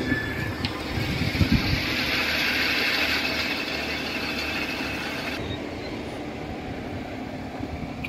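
Steady rumble of heavy machinery engines, with a few thumps in the first two seconds and a louder hiss in the middle that cuts off sharply about five seconds in.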